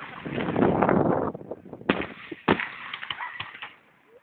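Fireworks bursting: a rumbling crackle for the first second or so, then two sharp bangs about half a second apart, followed by crackling that dies away near the end.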